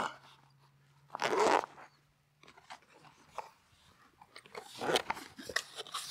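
Zip on a 4WD shower-tent awning's travel bag being pulled open in short rasping runs, with small clicks and rustles of the bag between them.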